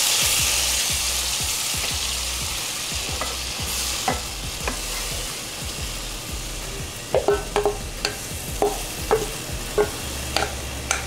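Tamarind sauce sizzling in melted butter in a frying pan, the sizzle easing off over the first few seconds, while a wooden spoon stirs it. Short knocks and clicks of the spoon against the pan come through in the second half.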